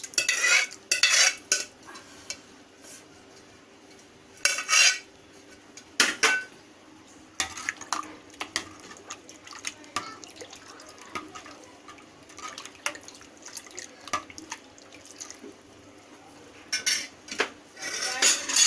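A spoon clinking and scraping against a pot, with irregular knocks and a few louder bursts, as cooked vermicelli is spooned into milk and stirred.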